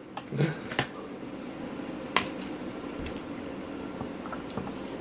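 Eating with a metal spoon: a few short clicks as food is scooped from a plate and taken into the mouth, about half a second, one second and two seconds in, then a faint steady low hum.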